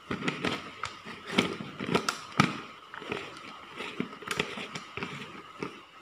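A quick, irregular run of sharp clicks and knocks, the loudest cluster about a second and a half to two and a half seconds in, over a faint steady high-pitched tone.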